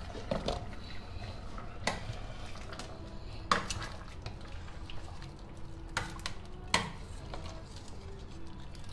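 Metal ladle clinking against a stainless steel soup pot while stirring and scooping, with a few sharp clinks spread out, the loudest about 3.5 and 7 seconds in.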